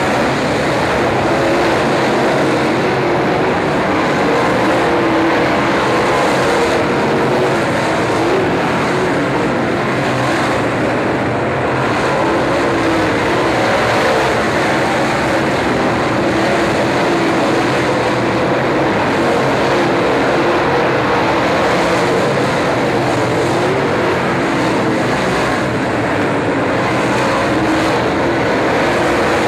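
Dirt late model race cars' V8 engines running at racing speed, a loud, steady, unbroken blend of several engines at once.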